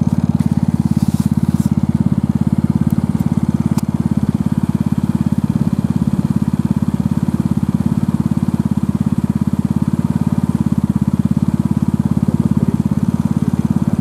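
A small vehicle's engine idling steadily close by, with a fast, even pulse. A few faint clicks of handling come in the first few seconds.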